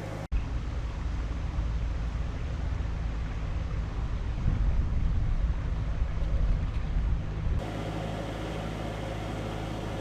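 Narrowboat's diesel engine running steadily at cruising speed, a low hum. Just after the start the sound drops out for a moment, followed by about seven seconds of louder, uneven low rumble, and then the steady hum returns near the end.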